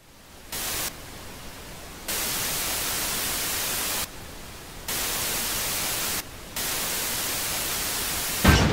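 Television static hiss cutting in and out in loud stretches, then a sharp thump near the end as a hand slaps the side of the old TV set.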